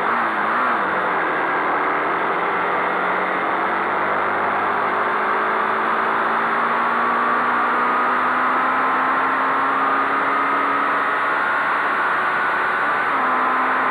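Honda CBX 250 Twister's single-cylinder four-stroke engine under hard acceleration on a top-speed run, its note dipping about a second in and then rising slowly and steadily as it pulls through the gear. Wind rush runs steadily underneath.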